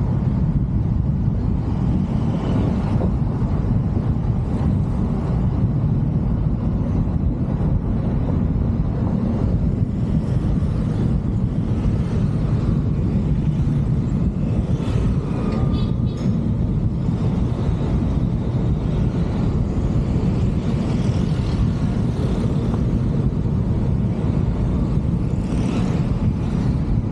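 Steady low rumble of a moving car: wind buffeting the microphone and road noise from the tyres.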